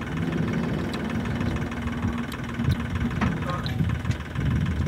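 An engine idling steadily, with a low rumble.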